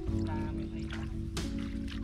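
Background music: sustained synth chords that change about half a second in.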